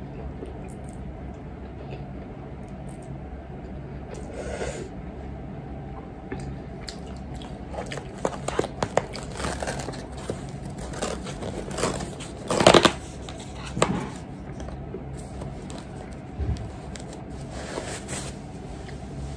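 Close handling noises of crinkling, scraping and clicks as hands reach and work near the microphone, with the loudest scrape about two-thirds of the way through, over a steady low room hum.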